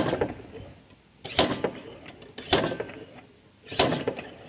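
A 5-pound slide hammer's weight slammed back against its stop four times, about once every second and a quarter, each a sharp metallic clank with a brief ring, yanking on a jaw puller clamped on a pulley. The pulley has been on for 15 years, is very tight and is coming off only with difficulty.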